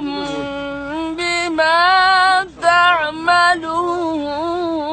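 A single voice reciting the Quran in melodic tajwid style, drawing out the verse ending "inna Allaha khabirun bima ta'malun" in long held, ornamented notes that waver in pitch, with a short break about halfway.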